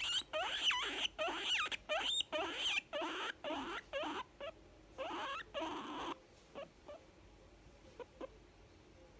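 Young guinea pig calling: a quick run of squeaky calls, each sweeping up and down in pitch, that stops about six seconds in, followed by a few faint short squeaks. The sounds are those of a contented guinea pig.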